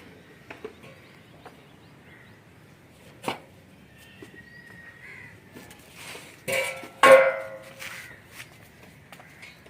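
Two loud, harsh animal calls, one about six and a half seconds in and the louder one just after, with scattered faint knocks and a sharp click earlier on.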